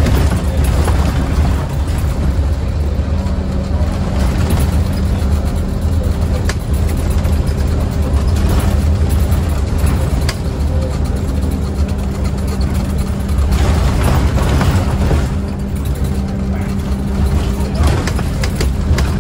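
Scania Omnicity single-decker bus on a Scania CN230UB chassis under way, heard from inside the passenger saloon: a steady drone of the diesel engine and drivetrain with road noise. Occasional clicks and rattles come from the bus's tired interior.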